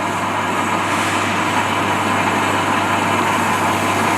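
Laboratory rice length grader running steadily just after start-up: a constant motor hum under an even rushing noise as it separates broken rice from head rice.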